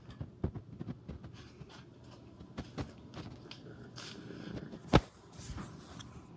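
Handling noise from a handheld phone camera: scattered light knocks and rustles, with one sharp click about five seconds in.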